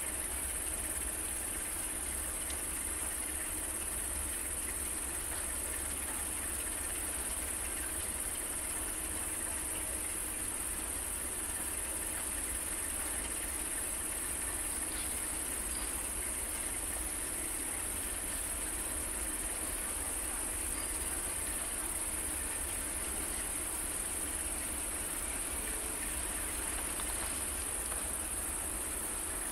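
Crickets chirping in a continuous high-pitched chorus, with a low steady hum underneath from a Sulzer-engined Electroputere LDE diesel locomotive standing with its engine running.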